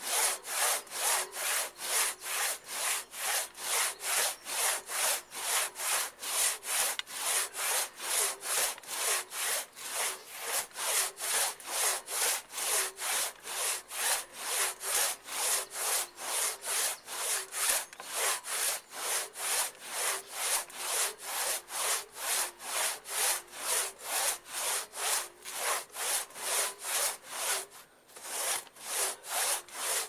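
Hand saw cutting through a larch trunk in steady, even back-and-forth strokes, about two to three a second, with a brief pause near the end.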